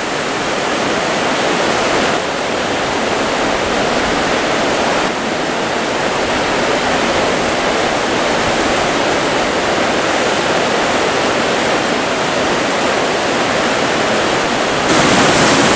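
Steady rushing of a mountain creek. Near the end it suddenly gets louder and brighter, as fast water heard up close.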